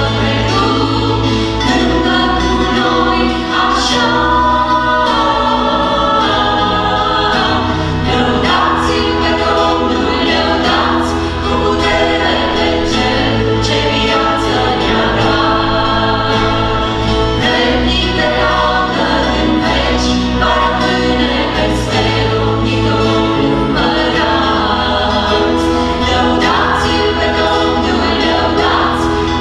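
Mixed vocal group singing a gospel hymn in harmony, accompanied by acoustic guitar and electric bass guitar.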